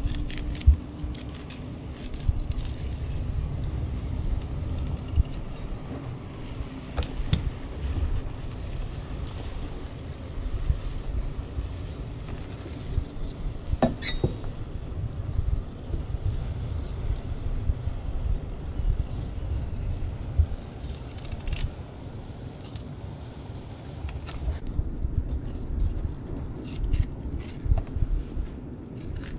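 Knife cutting and scraping through a Spanish mackerel (sawara) on a plastic cutting board as it is filleted, with scattered clicks and taps of the blade over a low steady rumble. One sharp ringing knock about 14 seconds in.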